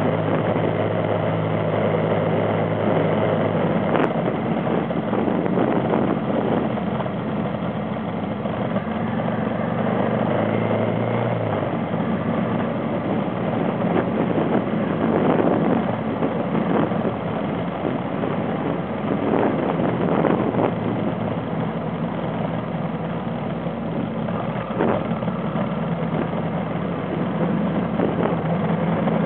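Vehicle engine running as it drives along a dirt road, its note shifting about four seconds in and again around eleven seconds, with occasional knocks and rattles from bumps in the track.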